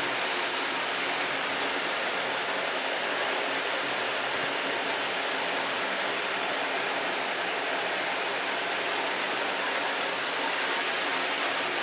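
A steady, even hiss like rushing water or static, unchanging throughout, with no speech or music.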